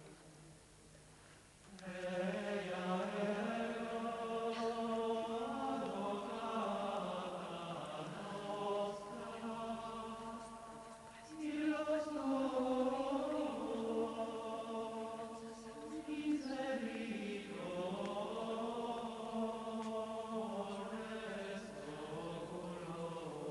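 Choir singing a slow church chant in drawn-out phrases, starting about two seconds in, with brief pauses between phrases.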